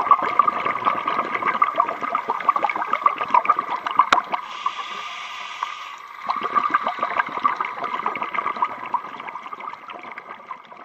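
Scuba diver's regulator breathing heard underwater: a long stream of exhaled bubbles gurgling and crackling, a brief hiss of inhalation about four and a half seconds in, then another stream of bubbles that fades near the end.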